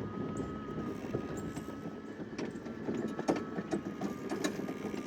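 Greenworks 60-volt battery riding mower driving along: a steady, high electric-drive whine with irregular knocks and rattles as it rolls over rough ground.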